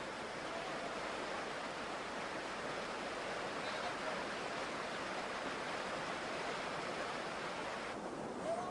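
Steady rushing of a fast-flowing river, an even hiss, with a short voice sound near the end.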